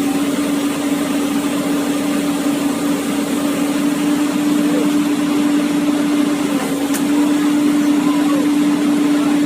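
Komatsu PC200-8 excavator running steadily, its engine and hydraulics giving a constant unchanging hum.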